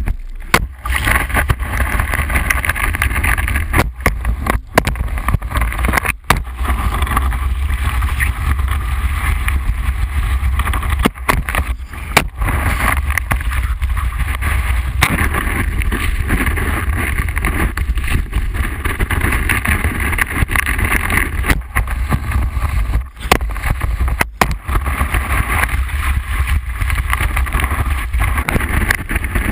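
Wakeboard planing fast across lake water, heard from a camera mounted on the board: a steady rushing hiss of water and spray over a heavy low wind rumble on the camera housing, dropping out briefly several times.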